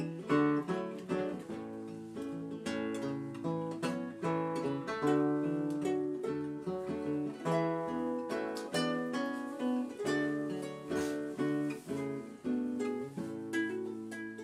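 Classical-style acoustic guitar played solo, an instrumental passage of picked notes and chords with no voice. The playing slows near the end, leaving the last notes to ring.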